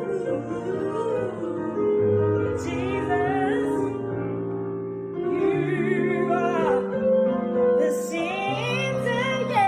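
Gospel music: a singer holds long notes with wide vibrato over sustained keyboard chords.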